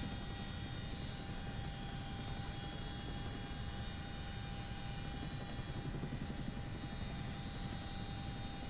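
Steady low rumble of aircraft engine and cabin noise, picked up from aboard the aircraft filming over the floodwaters.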